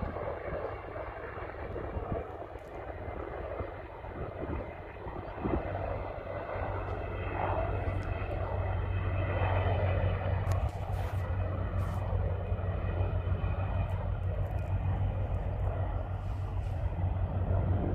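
Helicopter in flight, its rotor and engine sound growing louder from about a third of the way in as it comes closer, with a steady low hum underneath.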